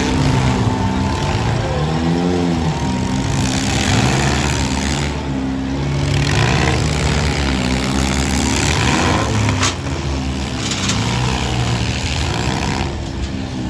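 Several four-cylinder demolition derby cars' engines running and revving hard, their pitch rising and falling, with a single sharp bang about ten seconds in.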